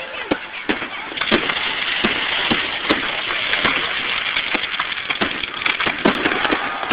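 Aerial fireworks display: many shells bursting in quick succession, dozens of sharp bangs over a continuous crackle.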